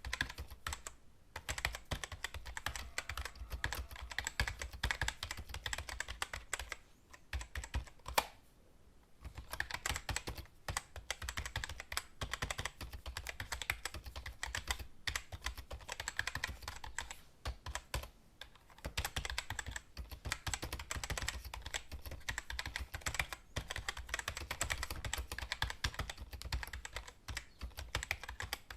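Typing on a computer keyboard: quick, uneven runs of keystrokes with a couple of brief pauses, the longest about eight and a half seconds in.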